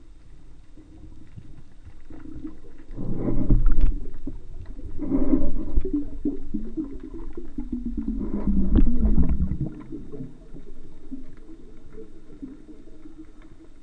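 Muffled underwater noise from a diver swimming, picked up through a camera's waterproof housing: water rushing and knocking, with three louder swells about three, five and eight and a half seconds in, over a low wavering hum.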